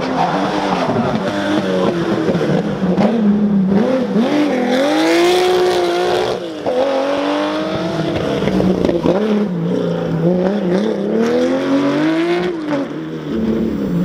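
Porsche 911 SC rally car's air-cooled flat-six engine revving hard, its pitch rising and falling again and again with throttle and gear changes as the car is driven through the corners. There is a brief break about six and a half seconds in.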